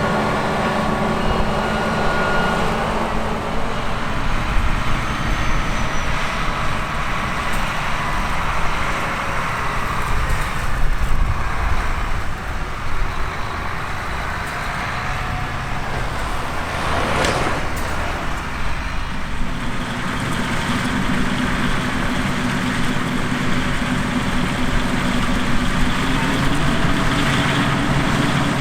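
Heavy diesel harvest machinery running steadily: a continuous engine drone, with a brief rushing sweep of noise about two-thirds of the way through.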